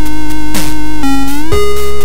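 ZX Spectrum chiptune from the AY sound chip: several buzzy square-wave notes played together, holding and then stepping in pitch. A noise-drum hit with a falling pitch sweep comes about half a second in, and a note bends upward into a change of notes about a second and a half in.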